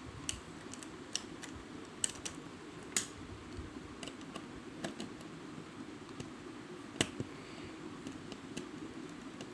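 Small irregular clicks and taps of a screwdriver and small screw against a perforated metal kit plate as the screw is driven in, over a steady low hum.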